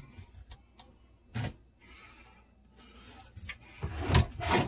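Hands twisting and pushing a garbage disposal against its sink mounting ring: scattered clicks and knocks with rubbing in between, and the heaviest knocks near the end. The unit does not turn, because it is stuck on its mount.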